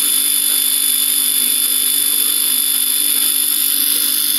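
Galena crystal radio heard through an amplifier's loudspeaker: a loud, steady hiss of static with a thin steady high whistle, on the coil tap that gives its best reception. The sound is very poor.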